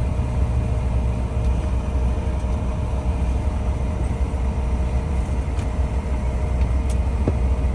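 Cabin noise of a CRJ-900 on the ground: a steady low rumble from its rear-mounted General Electric CF34 turbofans running at idle, with a faint constant hum over it.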